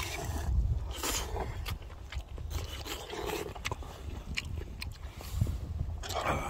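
Eating ramen: utensils scraping and clicking against the dish, with biting and chewing. Short clicks come scattered through, over a steady low rumble.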